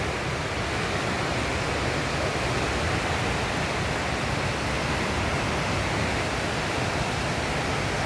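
Fast river rushing through whitewater rapids: a steady, even rush of water.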